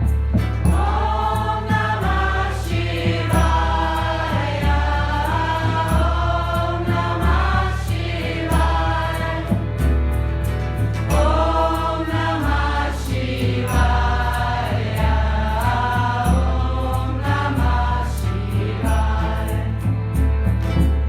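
Devotional chant music: a choir of voices singing a mantra in long, gliding phrases over a steady low bass pulse about once a second.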